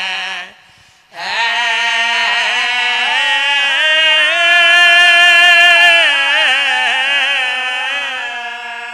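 A man's voice singing a Muharram lament in long, drawn-out held notes, breaking off briefly for breath near the start. The pitch steps up twice, holds high, then sinks and fades toward the end.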